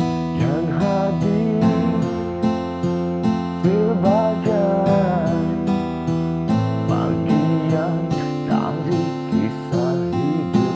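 Music: a karaoke backing track of strummed acoustic guitar, with a melody line over it that bends in pitch.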